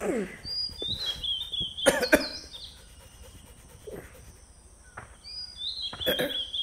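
A bird singing the same short phrase of high, stepping-down chirps twice, about five seconds apart. Sharp knocks about two seconds in and again near the end are the loudest sounds.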